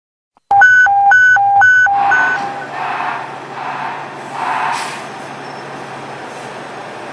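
A loud two-tone electronic alert sounds about half a second in, alternating between a low and a high pitch about three times, then fades out with echo. After it, the diesel engines of fire apparatus idle steadily, with swells of noise and a short air hiss.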